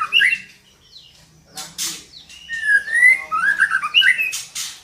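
Female white-rumped shama calling: a whistled phrase of gliding notes ends just after the start and another follows at about two and a half seconds, with short harsh rasping notes between and after them.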